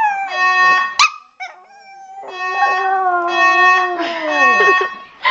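Fire alarm beeping loudly in repeated on-off pulses while a dog howls along: one long howl in the middle that slides down in pitch, then a few short yips near the end.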